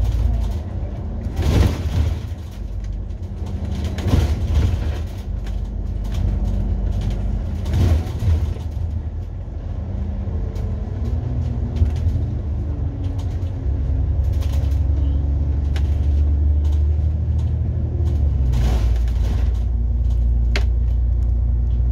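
Public double-decker bus heard from the front of its upper deck: engine drone and road rumble, the engine's pitch shifting and climbing in the middle, then running louder and steadier in the last third. A few brief loud bursts of noise break in during the first half and again near the end.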